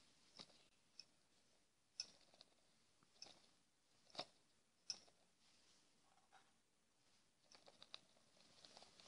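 Near silence, broken by a handful of faint, irregularly spaced clicks and taps, with a quick run of small ticks near the end.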